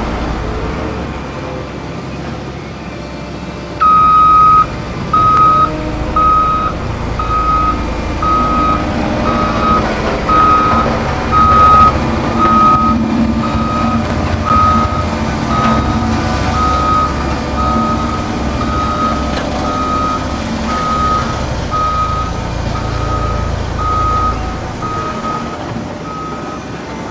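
Road roller's engine running with a low rumble, while its reversing alarm beeps steadily, about one and a half beeps a second, starting a few seconds in with a longer first beep.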